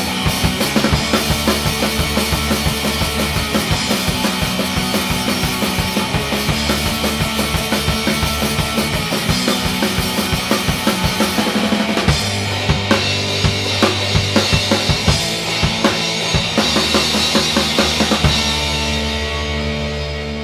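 Instrumental trio of drums, bass and electric guitar recorded live to analog, with busy drum-kit playing (kick, snare, rimshots) to the fore. About two seconds before the end the drums stop, and a held bass and guitar chord rings out and starts to fade.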